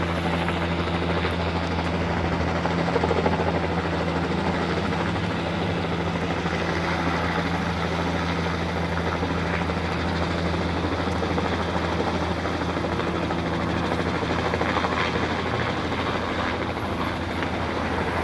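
Helicopter in flight, its rotor and engine making a steady low drone.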